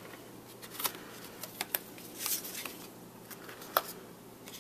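Cardstock being handled: a sheet of embossed paper rustles faintly, with a few short taps and clicks as it is moved over the card base.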